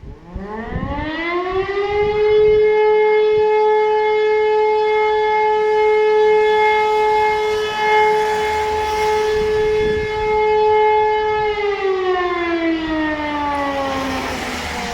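E57 electro-mechanical civil-defence siren on test, winding up to a single steady tone, holding it for about nine seconds, then winding down in a falling glide near the end.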